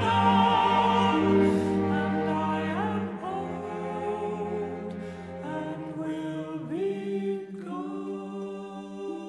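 Male vocal quartet singing a cappella in close harmony, holding slow sustained chords. The bass voice drops out about three seconds in, and the singing grows softer.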